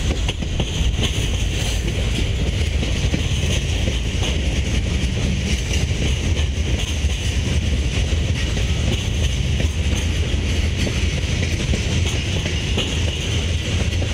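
Freight train of tank cars and covered hoppers rolling past at steady speed, a continuous rumble of wheels on the rails.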